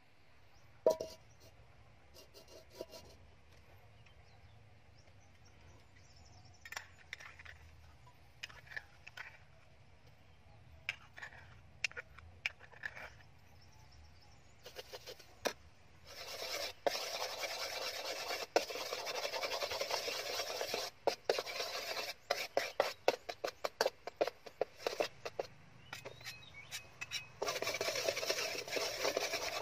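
A few scattered light clinks, then about halfway through a thick paste starts sizzling in hot oil in a steel wok. A metal spoon scrapes and stirs it in many short strokes, pausing briefly near the end.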